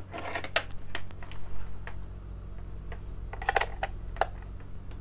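Handling noise from audio cables being plugged into a Bluetooth input module: scattered clicks and short rattles of jack plugs and connectors, with a cluster of clicks about three and a half seconds in. A steady low hum runs underneath.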